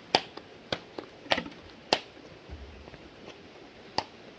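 Sharp knocks: four at roughly even spacing over the first two seconds, then one more near the end.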